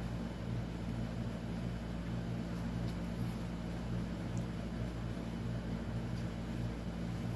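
Steady low hum from a machine or appliance running in a small room, with a couple of faint ticks near the middle.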